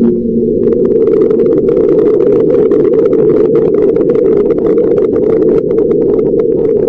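Steady low rumbling noise with many scattered clicks and crackles over it.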